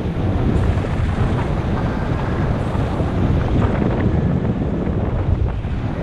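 Steady low buffeting of wind on a GoPro HERO5 Black's microphone from the airflow of paraglider flight.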